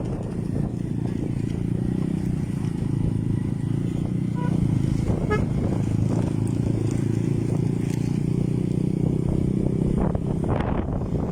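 A boat's motor running steadily at a constant speed.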